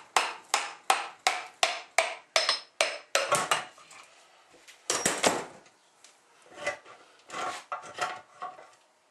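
Hammer tapping on a block of wood to drive the piston out of an old Fairbanks Morse engine's cylinder: about ten quick, even taps, roughly three a second, then a louder knock about five seconds in and a few scattered softer knocks after it.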